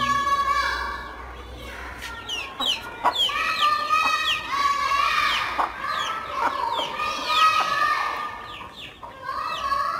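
A flock of domestic chickens feeding: many chicks peeping in quick, short chirps over a hen's clucking and longer held calls.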